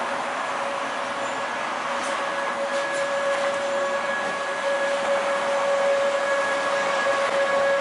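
Electric train of the Bière–Apples–Morges railway running, a steady whine over even running noise, growing a little louder about halfway through.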